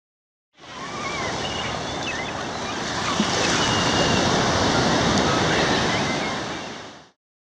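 Ocean surf washing in, a sound-effect bed that fades in about half a second in, swells slightly and fades out just before the end. A few faint high gliding calls sound over it.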